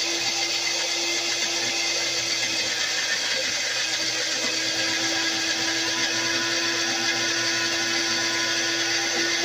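Personal bullet-style blender running continuously at a steady pitch, its motor held on while it purées a thick mash of fermented peppers into hot sauce.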